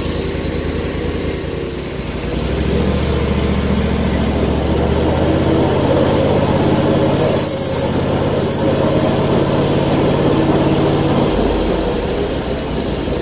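Portable bandsaw mill's engine running. From about two and a half seconds in, its note drops deeper and stronger under load as the blade cuts a board from the cant, and it eases back shortly before the end.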